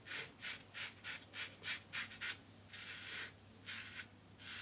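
Schick Type L injector razor scraping through lather and two days' stubble in short strokes, a dozen or so quick rasps about two or three a second, with a few longer strokes past the middle.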